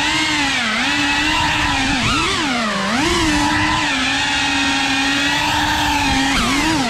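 Cinewhoop FPV drone's brushless motors and ducted propellers whining steadily, the pitch dipping and rising with throttle changes; the deepest dip comes about three seconds in.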